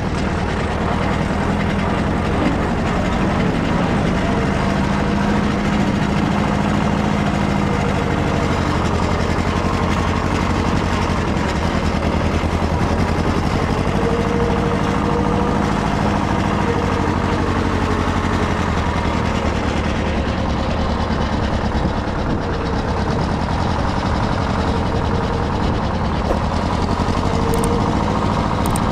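Small tractor engine running steadily, its pitch wavering slightly.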